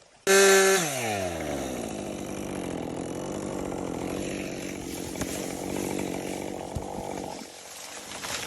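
Chainsaw revved hard, its pitch falling as the chain bogs down into the wood, then cutting steadily under load; the throttle is let off about seven seconds in.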